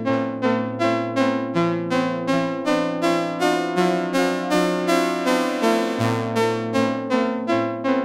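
Dreadbox Nymphes six-voice analog polysynth playing a repeating pattern of short plucked notes, about two a second, over held low chords that change every second or two, run through an Eventide Rose analog delay.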